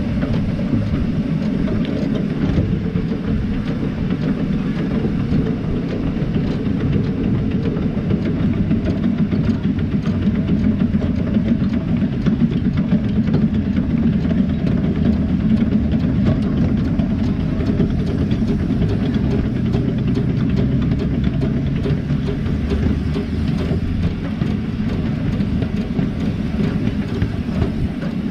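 A 7¼-inch gauge miniature steam locomotive running along its track, heard from the footplate: a loud, steady rumble of the engine working and the wheels on the rails.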